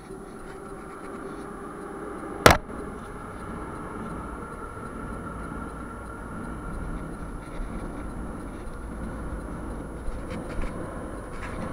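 Moscow Metro train running: a steady rumble with a faint whine, growing slowly louder, and one sharp click about two and a half seconds in.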